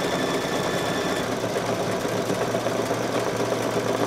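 Brother Luminaire single-needle embroidery machine stitching steadily, tacking down a piece of leather in the hoop.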